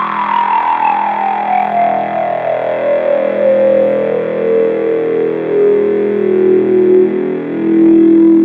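Roland JD-Xi synthesizer playing a held, buzzy brass-based note, an Oberheim OB-X-style patch, through a small portable amp. A bright resonant filter sweep glides slowly downward across the note, from a high, thin tone to a low, dark growl.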